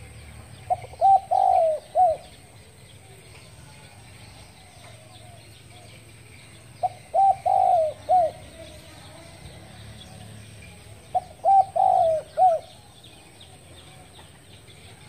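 Spotted dove cooing: three short phrases of four or five notes each, a few seconds apart, with faint chirping of other birds in the background.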